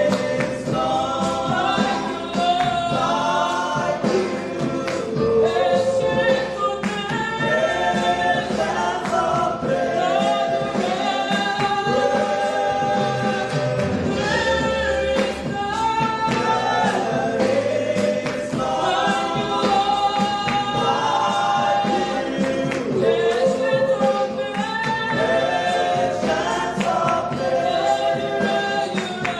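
Gospel music sung by a choir of several voices, with instrumental backing.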